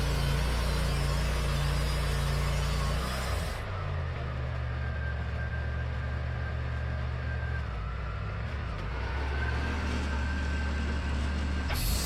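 Wood-Mizer LT40 band sawmill running, its engine humming steadily throughout. The hiss of the blade cutting hemlock stops about three and a half seconds in and starts again near the end, with a faint high whine in between.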